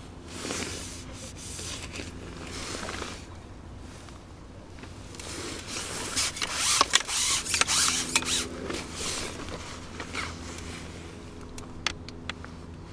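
Fixed-spool reel being wound on a feeder rod as a fish is played in, with waterproof clothing rustling. The loudest, clickiest stretch comes in the middle, and a few light ticks come near the end as the fish is brought to the landing net.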